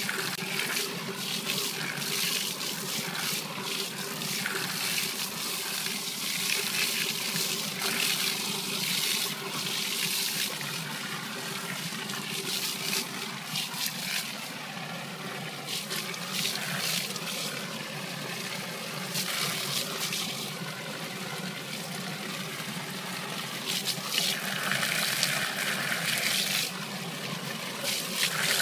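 Steady splashing of a water jet from a calf milk mixer's pump-fed recirculating hose into its tank, wetting calf milk powder as it is poured in.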